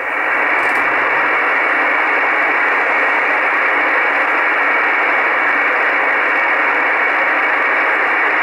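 Icom IC-R8500 communications receiver in upper-sideband mode putting out steady shortwave static hiss, with no voice on the channel between transmissions.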